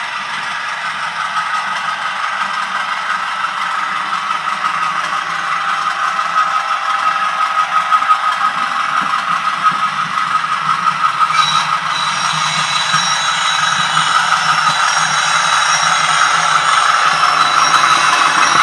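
Sound-fitted 00 gauge model train approaching and running past: a steady sound-chip engine with the rattle and clatter of the model's wheels on the track, growing louder as it nears. A thin high whine joins about two thirds of the way through.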